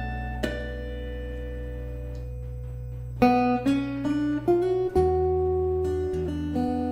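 Steel-string acoustic guitar played fingerstyle: a chord plucked and left to ring for about three seconds, then a quick run of melody notes over a new bass note, ringing on.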